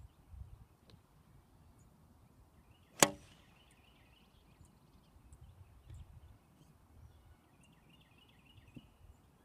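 A golf iron striking a ball once, a single sharp click about three seconds in.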